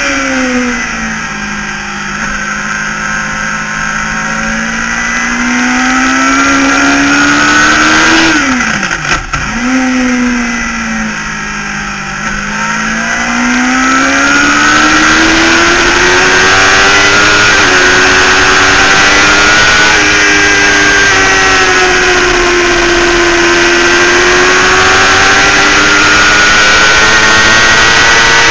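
Motorcycle engine heard from an onboard camera at racing speed. The revs drop over the first two seconds, stay low, then climb. About nine seconds in they dip sharply and briefly before rising again through the gears, then fall and rise once more. A steady rush of wind noise runs underneath.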